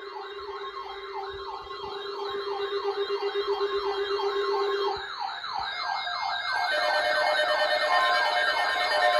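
Electronic emergency alert tone wailing up and down in pitch about three times a second, like a yelp siren, over a steady lower tone that stops about five seconds in. Near the end the sweeps get louder and steady tones sound along with them.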